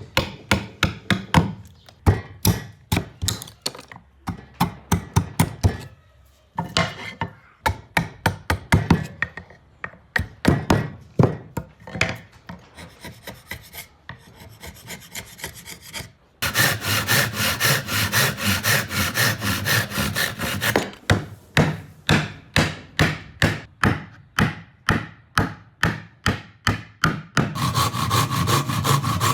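Hand tool worked back and forth on wood in quick, even strokes, about three a second, like hand sawing or rasping. There is a short pause about six seconds in, and the strokes turn abruptly louder and fuller about sixteen seconds in.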